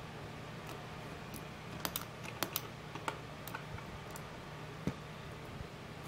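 Light, irregular plastic clicks, about eight of them, mostly in the middle stretch, from a 3D-printed Mercedes-Benz-style column gear shifter stalk being worked by hand.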